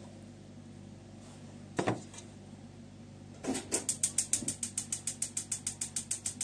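A single knock, then a gas stove's igniter clicking rapidly, about seven or eight clicks a second for some three seconds, as the burner is lit.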